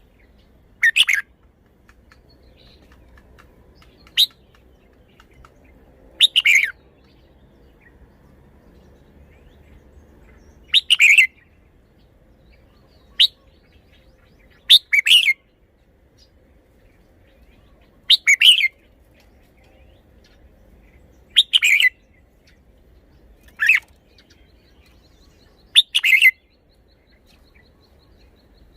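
Red-whiskered bulbul singing short, clear song phrases, about ten of them, each about half a second long with pauses of a few seconds between.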